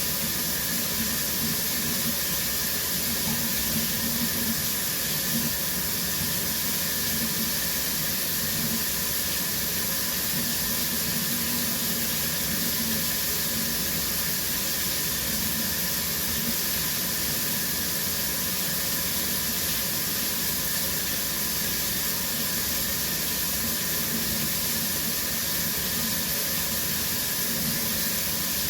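Shower running steadily, water spraying from the showerhead and falling on the shower floor in an even hiss.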